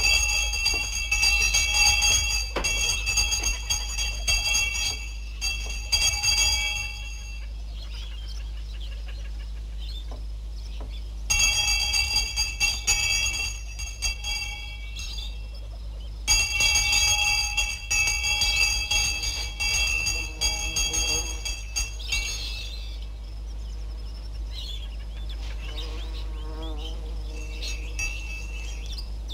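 A hand-held school bell rung rapidly in three long bouts of several seconds each, with pauses between them.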